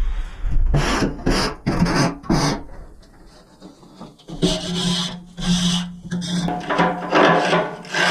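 Scraping strokes on the smoker's walls, clearing off sludge and patina: four quick strokes, then a pause, then longer drawn-out strokes with a low hum under them.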